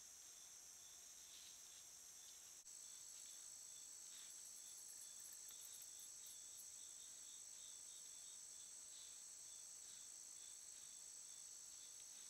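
Faint chorus of night insects: a steady high-pitched trill of crickets, with another insect chirping about twice a second. The sound drops out for an instant a little under three seconds in and resumes slightly louder.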